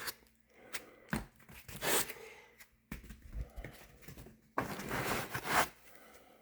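Packing being handled in a cardboard shipping box: foam pool noodles and cardboard rubbing and rustling, with scattered light knocks. A louder burst of scraping noise lasting about a second comes about four and a half seconds in.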